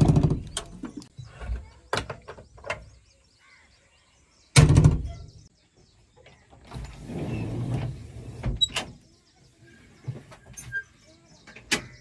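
Knocks and clunks of a JCB 3DX backhoe loader's cab being worked by hand, with no engine running. The loudest is a heavy thud about four and a half seconds in, and a short scraping rustle follows a couple of seconds later.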